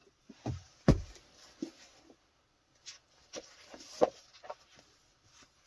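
A few scattered knocks and handling sounds, with a heavier thump about a second in and another about four seconds in.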